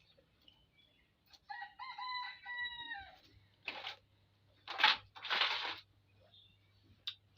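A rooster crowing once, a drawn-out call that drops in pitch at the end, followed by three short, loud noisy bursts.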